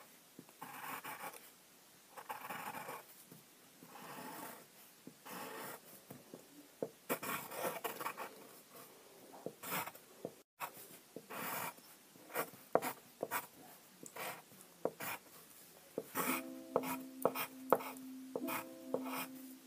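A drawing tool scratching across paper in short, irregular strokes as a child draws. Near the end, a few held musical notes begin.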